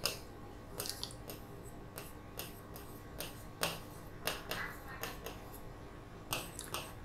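Faint, short scratching strokes and taps of a pen writing, about fifteen of them scattered irregularly.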